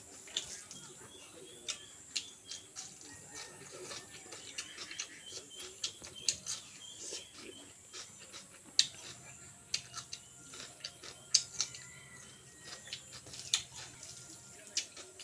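Close-up eating sounds: mouth clicks and smacks while chewing chicken and rice, irregular, several sharp and loud. Faint bird chirping repeats in the background through the first half.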